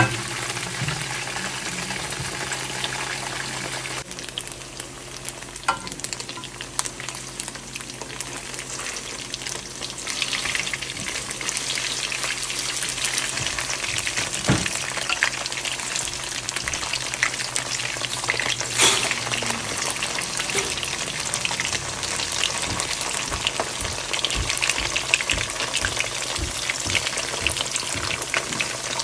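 Food sizzling and crackling in a hot frying pan while it is stirred. The crackle grows denser about a third of the way in, and a utensil knocks sharply against the pan a couple of times.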